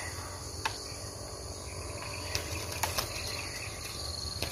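Steady high-pitched chorus of crickets and other insects, with a handful of faint sharp clicks scattered through it.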